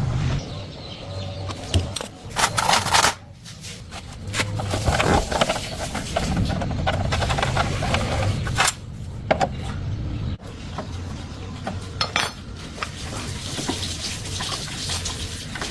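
Metal tools and parts clinking and clattering during motorcycle repair work, with clusters of sharp knocks a couple of seconds in, near the middle and about twelve seconds in.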